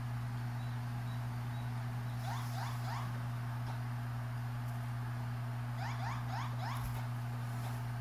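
Cockatiel giving two short runs of quick rising chirps, about four in each, a couple of seconds in and again about six seconds in, over a steady low hum.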